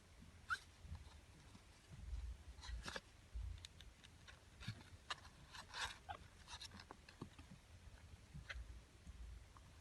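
Faint scattered small clicks and soft rustles, a little busier in the middle, over a low rumble.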